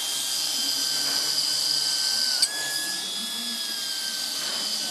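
Electric power tool running at speed with a steady high whine. About two and a half seconds in, the pitch dips briefly with a click.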